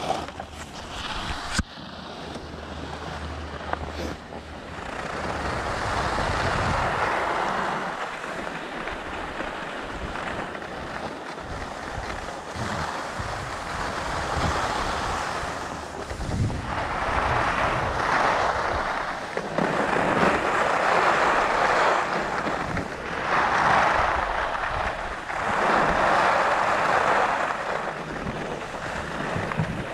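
Skis sliding and scraping over groomed snow on a downhill run, a hiss that swells with each turn about every two to three seconds, over the low buffeting of wind on the microphone.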